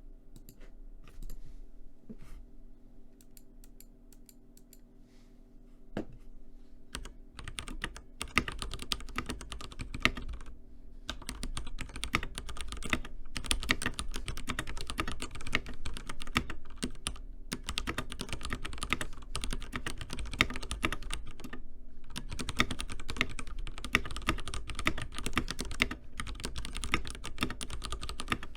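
Stock Ducky One 3 TKL mechanical keyboard with Cherry MX Red linear switches being typed on. A few scattered keystrokes at first, a single heavier thump about six seconds in, then fast, steady typing with a few short pauses.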